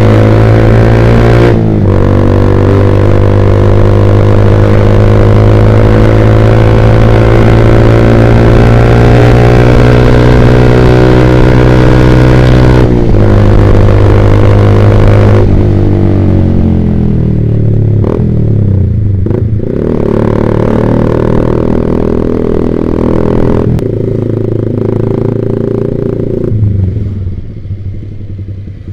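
Yamaha Vixion's single-cylinder engine running through an aftermarket Proliner TR1 R exhaust while riding. It runs steady, with short breaks in the sound about two seconds in and again around thirteen seconds. From about fifteen seconds the pitch falls as it slows, then it picks up and drops away again near the end.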